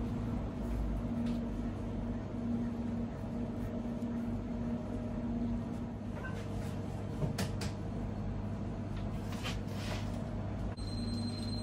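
Steady low hum of bakery kitchen machinery, with a few light clicks and knocks from pastry-tray work in the second half.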